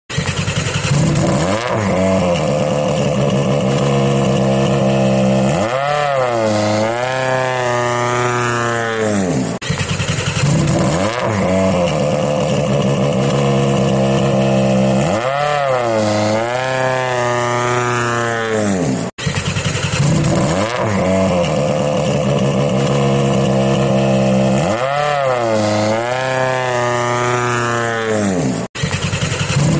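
A looped motor-vehicle engine sound effect: the engine runs steadily, dips and then revs up in a long rising whine, and the same clip restarts with a sudden cut about every ten seconds, three times over.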